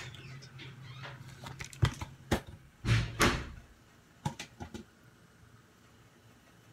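Kitchen handling sounds as a metal spoon scoops banana from its peel next to a plastic blender cup: a few sharp clicks and knocks, with the loudest, short scraping noise about three seconds in. A low hum sounds during the first two seconds.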